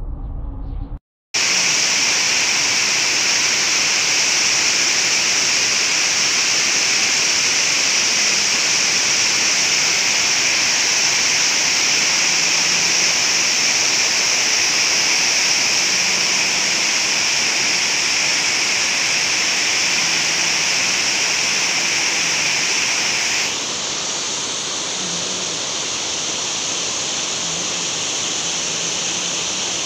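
Water pouring over a low concrete weir and churning into white water below it: a loud, steady rush that starts about a second in. Near the end it becomes a little quieter and duller.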